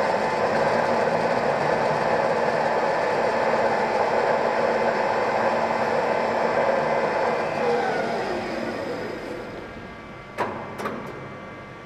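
Mexpol TUB 560 center lathe running with its spindle and chuck turning at speed, a steady mechanical drone with several fixed tones. About two thirds of the way in, the spindle is switched off and the drive winds down, falling in pitch and fading. Two sharp knocks, about half a second apart, come near the end.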